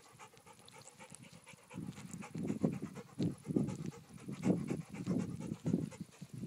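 Dog panting: quiet at first, then a run of rapid breaths, about three a second, from about two seconds in.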